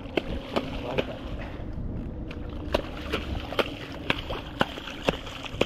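Water sloshing and splashing, with sharp clicks about twice a second.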